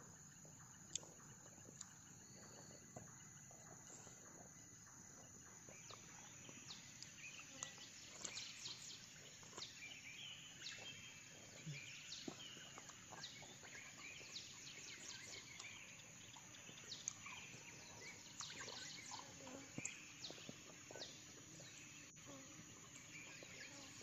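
Faint forest ambience: a steady high-pitched insect drone, with many short, high chirps coming thick from about six seconds in.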